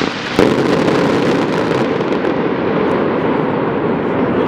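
Fireworks going off: one sharp bang about half a second in, then a dense, steady din of noise.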